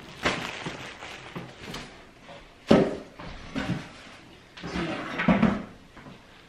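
Unpacking noises from a cardboard shipping box and a plastic-wrapped memory foam pillow: rustling and light knocks, a sharp thud a little under three seconds in, and another cluster of knocks about five seconds in.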